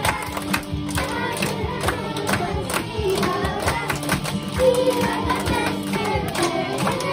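A class of young children singing their school song over backing music, clapping their hands in time.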